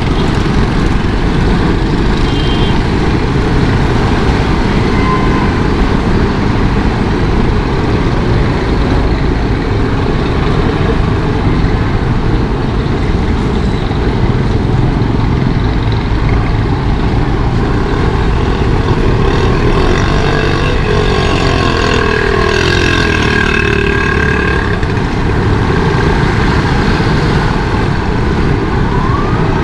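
Steady traffic noise with engine rumble, heard while riding a motorcycle along a wet city street. About twenty seconds in, a heavy vehicle's engine passes close, its pitch sliding. Near the end a siren starts to wail.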